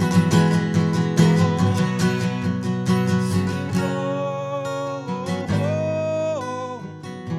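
Worship band music led by strummed acoustic guitar over held chords. The strumming thins out about halfway, leaving sustained notes, and the music gets quieter toward the end.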